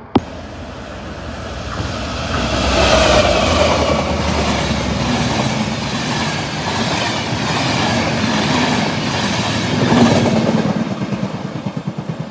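A sharp click at the very start, then an Enterprise train passing at speed: a Class 201 diesel locomotive with its coaches and driving van trailer. The rush of wheels and engine builds over the first few seconds and holds steady as the coaches go by. It ends in a rhythmic clickety-clack of wheels on rail joints as the last vehicle rolls away.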